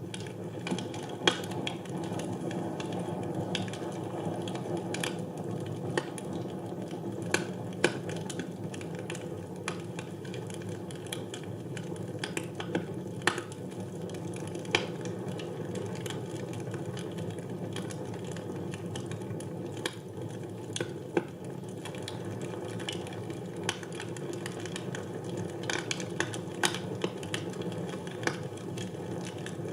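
Fire burning in a fireplace: a steady low rush of flame with irregular sharp crackles and pops, a few of them much louder than the rest.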